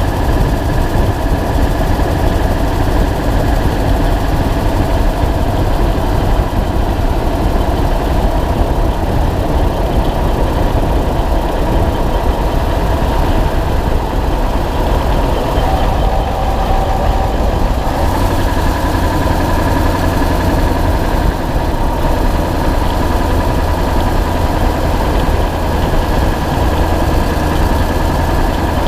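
2000 Ford F250's 7.3 L Power Stroke turbo-diesel V8 running, heard close up from under the truck at the leaf spring, with the tick of an exhaust leak. The low rumble grows heavier about two-thirds of the way through.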